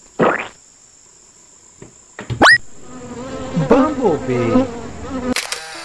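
Bee buzzing for about two seconds, starting about three seconds in. Before it come a short squelch from a squeezed mesh squishy ball and a quick whistle rising sharply in pitch.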